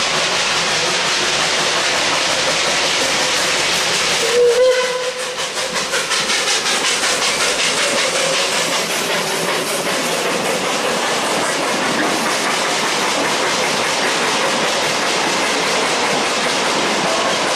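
Carriages of a Puffing Billy narrow-gauge steam train rolling past at close range: a steady hiss of wheels on rail with rhythmic clicking over the rail joints. About four seconds in comes a short, loud steam whistle blast.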